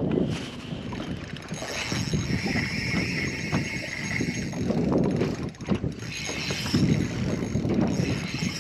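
Fishing reel being cranked, a steady whirring with fast small ticks, over wind noise on the microphone.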